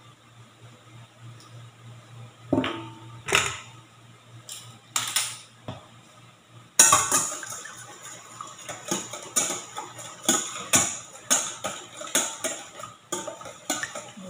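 A few separate metal clinks, then, from about seven seconds in, a wire whisk beating eggs in a stainless steel bowl: a fast, uneven run of clinks as the wires strike the bowl.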